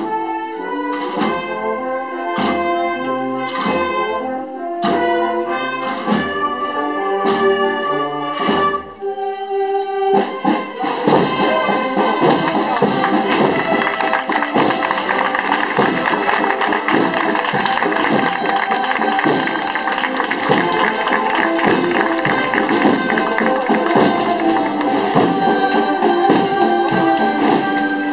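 Brass band playing a slow processional march, with steady bass drum beats under the melody. About ten seconds in, the band grows louder and fuller, with rapid drumming under held brass chords.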